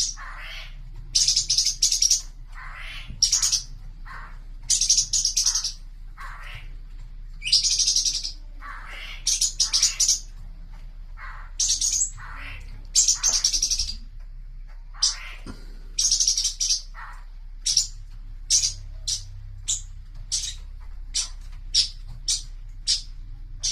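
A cucak cungkok songbird singing loud, high, repeated phrases about a second long, turning in the last third to short quick notes at about two a second.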